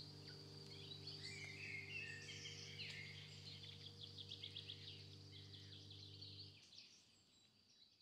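Faint birdsong: many short chirps and a quick trill of repeated notes, over a low steady hum that stops about two-thirds of the way through. The birdsong fades away at the end.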